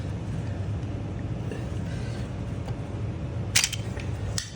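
Vice grips clicking against a stuck oil filter as they are repositioned: two sharp clicks near the end, less than a second apart, over a steady low hum.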